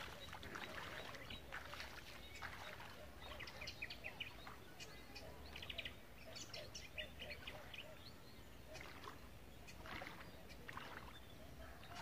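Faint splashing of footsteps wading slowly through shallow stream water, in short irregular strokes.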